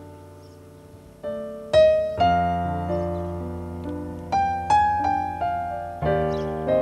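Solo piano background music: slow single notes and chords, each struck and left to ring out and fade. It is quiet for the first second, and the notes start just after.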